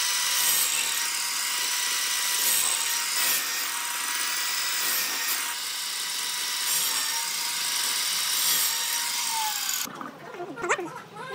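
A power tool running steadily on wood: a high whine over a dense hiss. Near the end the whine dips in pitch and then stops abruptly.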